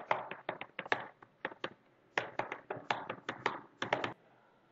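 Typing on a computer keyboard: a quick, uneven run of about twenty key clicks with a short pause midway, stopping about four seconds in.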